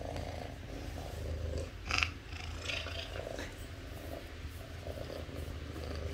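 A cat purring steadily with a low, even purr while it is being combed, its purr a sign of contentment. A brief scratchy sound comes about two seconds in.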